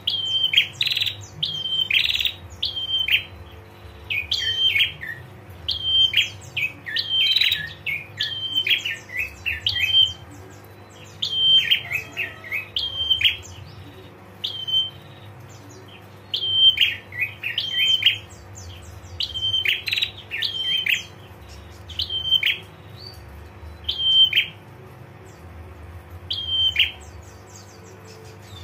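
Female prinia (prenjak) giving its 'ngetir' call: short, sharp, high chirps repeated in quick clusters, with brief pauses between bouts. A faint steady hum runs underneath.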